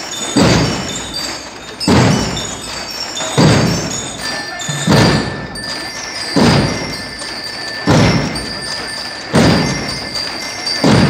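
Banda de guerra (marching drum-and-bugle band) playing: bass drums struck together in a slow, heavy beat about every second and a half, each hit ringing out, with high bell-like notes sounding over the beat.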